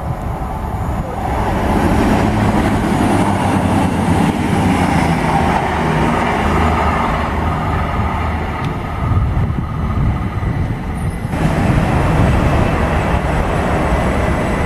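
A Virgin Class 221 Super Voyager diesel-electric train coming along the line, its underfloor diesel engines giving a steady low drone with rail rumble. About 11 seconds in the sound changes abruptly to a Southern Class 377 electric unit running past close by.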